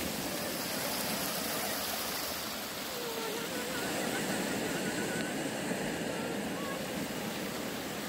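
Small woodland stream rushing over rocks: a steady, even sound of running water.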